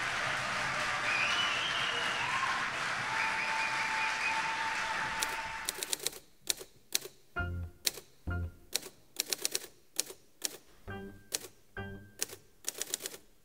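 Audience applauding, fading out after about five seconds. Then a manual typewriter is typed in irregular bursts of sharp keystrokes, a few of them landing with a heavier thud.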